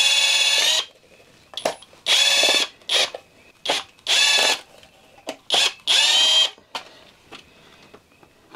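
Cordless drill running in four short spurts of under a second each, a steady whine, backing out the screws that hold an old RV air conditioner's control box to the ceiling. Small clicks and knocks come between the spurts.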